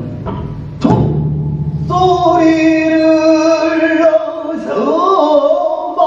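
A pansori singer holds one long sung note that bends and wavers in pitch near the end. Before it, two strikes of a big Korean drum (daebuk) sound, the second leaving a low ringing boom.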